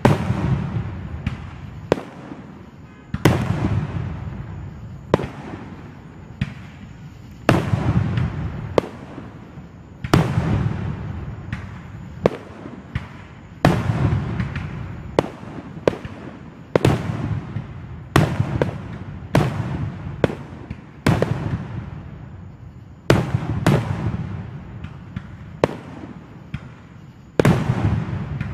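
Aerial fireworks shells bursting in quick succession: a sharp bang about every second, each followed by a low rolling rumble.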